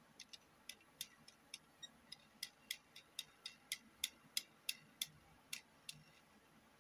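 Faint, light clicks from a die-cast metal model car being handled, about three a second, stopping about six seconds in.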